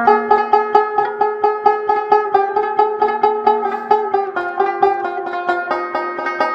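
Background music: a fast, bright plucked-string tune with a steady picking rhythm, banjo-like.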